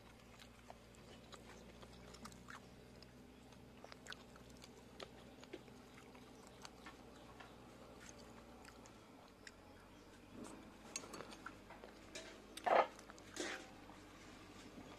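Faint sounds of people eating: chewing and small scattered clicks of spoons and bowls over a low hum, with two short, louder sounds close together near the end.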